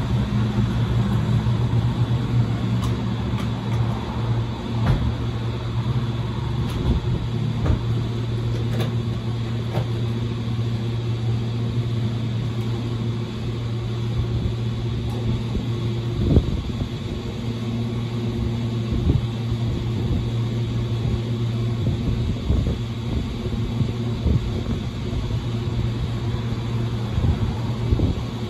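Steady low mechanical hum with a few faint clicks and one brief knock about halfway through.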